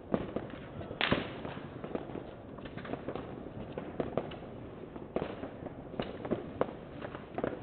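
New Year's fireworks and firecrackers going off: an irregular scatter of sharp bangs and cracks, a few each second, the loudest about a second in.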